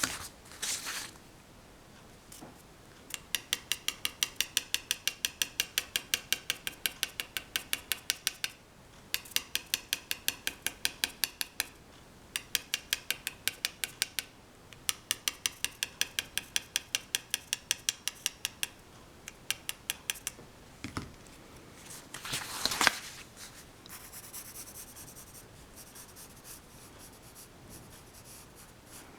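Pencil graphite on paper in quick back-and-forth shading strokes, about five a second, in several runs with short pauses between them. Later comes one louder rub, then softer, steadier pencil scratching.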